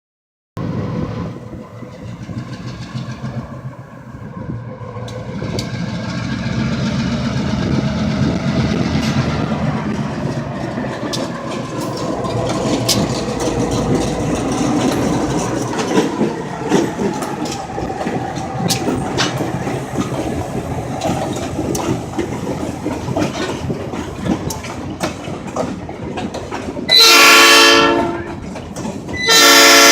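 Train rumbling past, growing louder over the first few seconds, with wheels clicking over the rail joints. Near the end the train horn sounds two loud blasts of several notes at once.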